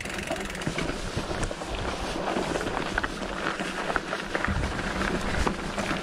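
27.5-plus-tire mountain bike rolling slowly over a trail thick with pine straw: steady tyre noise with many small clicks and knocks from the bike.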